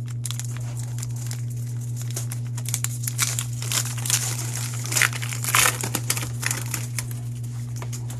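Foil wrapper of a 2022 Donruss Clearly football card pack being torn open and crinkled by hand: a run of irregular crackles, loudest about five seconds in. A steady low hum runs underneath.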